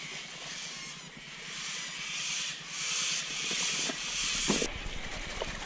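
Close rustling and handling of a fabric backpack being opened, coming in stretches that stop abruptly near the end, with a short low thump just before the stop.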